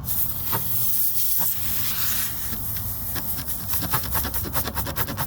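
Compressed air hissing out of a tire's puncture hole as the old plug is pushed through into the tire; the hiss starts suddenly and, about halfway through, breaks into a rapid, fluttering sputter.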